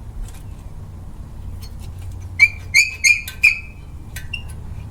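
Steel-backed brake pads clinking together as they are handled: four sharp ringing clinks in quick succession around the middle, with a few lighter taps around them.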